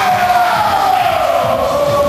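Several voices yelling together in one long shout that falls slowly in pitch, with music underneath.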